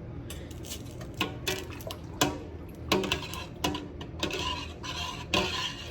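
A utensil stirring milk in a pot, knocking against the pot in an irregular run of clinks, with scraping strokes in the second half.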